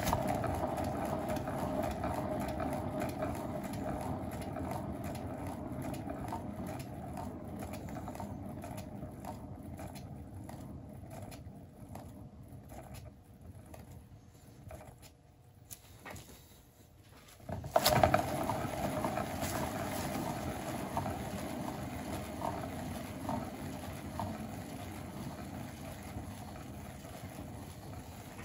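Spinner turntable under a paint-covered round board, a steady rolling rumble that slowly fades as it coasts down. It is set spinning again about 18 seconds in, starting with a sharp knock, and fades once more.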